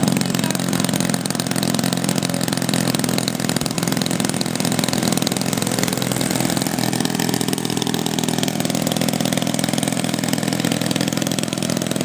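DLE-20 single-cylinder two-stroke petrol engine with its standard muffler, idling steadily in a model plane with the propeller turning.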